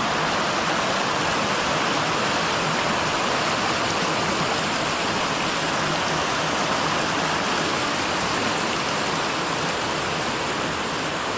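Fast-flowing stream rushing, a steady, even noise of running water.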